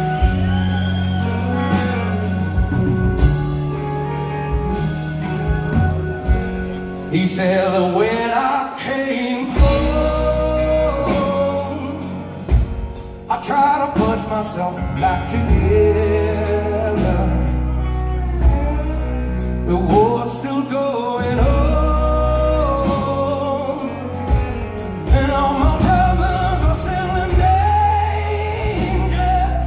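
Live rock band playing a slow song: a male lead singer over electric guitar, bass and drums. The first few seconds are instrumental, and the singing comes in about seven seconds in.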